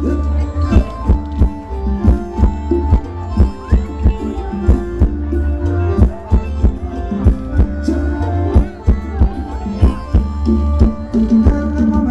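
Thai ramwong dance music from a live band: drums keep a steady beat under a heavy bass line and sustained melody notes, with no singing.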